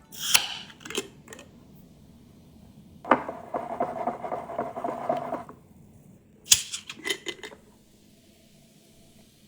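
Kitchen handling noises: sharp clinks and knocks of utensils and dishes, with a rapid rattling for about two and a half seconds in the middle.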